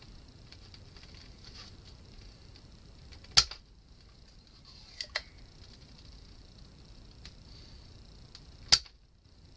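Spring-loaded desoldering pump (solder sucker) firing twice with a sharp snap, about five seconds apart, as solder is cleared from joints on an amplifier circuit board. A pair of lighter clicks falls between, over a faint steady hiss.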